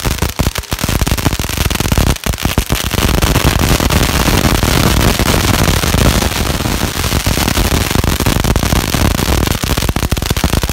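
Firecrackers going off: separate sharp bangs at first, then after a couple of seconds a dense, unbroken crackle of rapid bangs.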